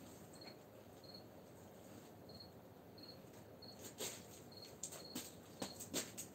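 A cricket chirping faintly, short single chirps at one high pitch, about one every half second to a second. A few soft knocks and rustles of handling come about four to six seconds in.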